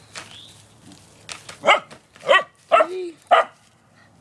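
A pet dog giving four short, pitched barks in quick succession, starting about a second and a half in.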